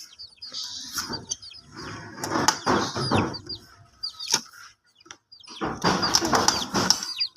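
Chickens clucking and scuffling, with bursts of wing flapping, small high chirps and a few sharp clicks.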